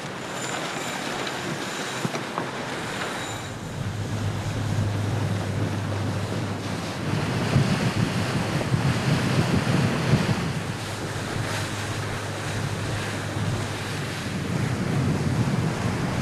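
Wind buffeting the microphone over water rushing past a boat under way. The gusts rise and fall, and a steady low hum joins about four seconds in.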